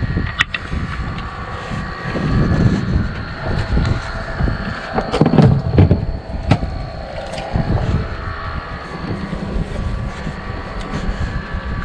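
Steady low rumble on a small fishing boat at sea, with several sharp knocks and clatters as gear and the live-bait box are handled.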